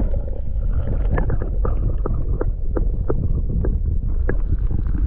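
Muffled sound from a camera held underwater: a steady low rumble of moving water with sharp clicks and knocks, about two a second.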